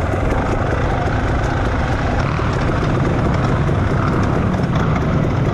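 Off-road motorcycle engine running at a steady, loud level.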